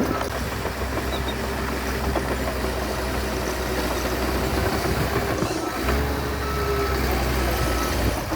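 Heavy diesel engine of earthmoving equipment running steadily with a low rumble, dipping briefly a little past halfway.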